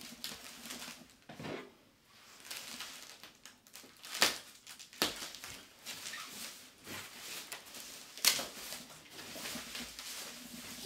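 Shipping-box packaging being handled: irregular rustling and scraping of foam and cardboard, with sharp knocks about four and five seconds in and again past eight seconds.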